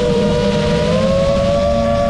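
7-inch FPV quadcopter's motors and propellers whining in flight, the pitch gliding up about a second in as the throttle rises, over a low rush of wind.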